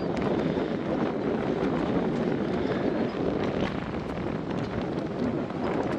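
Wind buffeting the microphone, a steady rush of noise with no clear breaks.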